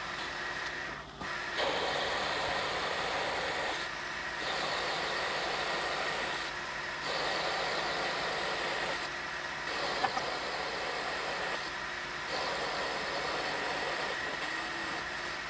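Myford Super 7 lathe running with a steady whine while the tool turns a metal bar in the chuck. The cutting noise comes in stretches of two to three seconds with brief quieter gaps between them, and there is a sharp click about ten seconds in.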